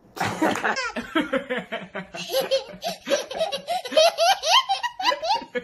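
A toddler laughing hard: a long run of high-pitched belly laughs, quick peals one after another.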